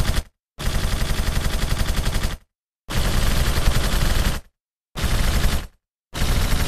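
Automatic machine-gun fire as a sound effect, in repeated bursts of rapid shots. A burst ends just after the start, then bursts of about two seconds, one and a half seconds and under a second follow, with another starting near the end. Each burst stops dead into silence.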